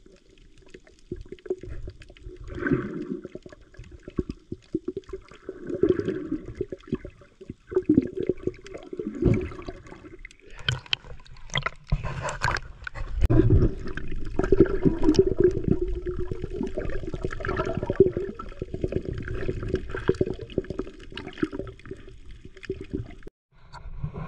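Seawater heard through a GoPro held underwater: muffled gurgling and swishing as the camera moves. About eleven seconds in it breaks the surface with a few splashes, followed by steady sloshing of small waves over the camera.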